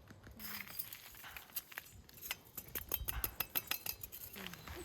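Camp cookware and utensils clinking: a quick run of light, sharp clinks and taps, thickest from about a second and a half in until near the end.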